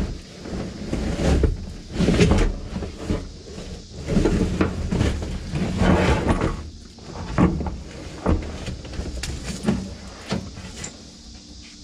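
Irregular scraping, rustling and knocking as the vinyl floor covering and waterlogged felt and plastic sound-deadening padding are pulled up from a 1986 GMC S15 pickup's cab floor.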